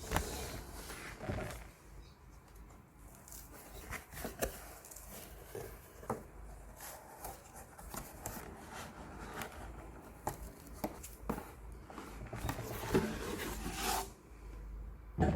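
Packaging being handled while a laptop box is opened: scraping and rubbing, with scattered small clicks and taps, and a longer stretch of rustling and scraping near the end.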